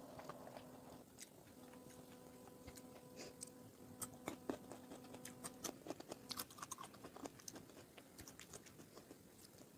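Faint, close-miked chewing and biting: wet mouth clicks and smacks, coming thickest in the middle of the stretch. A faint steady hum underneath stops partway through.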